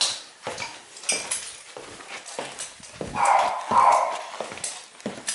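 A dog barking twice, about three seconds in, among scattered knocks and clatter.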